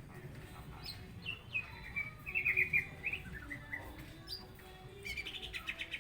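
A songbird singing: short chirps that drop in pitch, mixed with quick rapid trills, the loudest trill about halfway through and another near the end.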